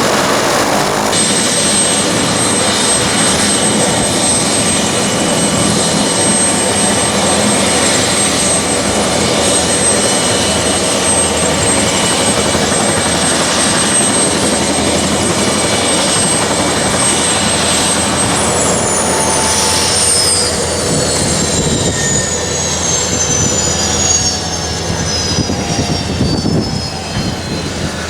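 AS355 Écureuil 2 twin-turbine helicopter running close by: rotor noise under a steady high turbine whine. About 18 seconds in, the whine slides down in pitch and the sound eases, as the engines wind down.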